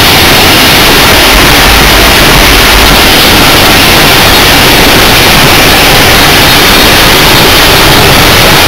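Mount Washington Cog Railway coal-fired steam locomotive working, heard from inside the cab as a loud, steady wash of noise with no clear rhythm, pinned at full level on the microphone.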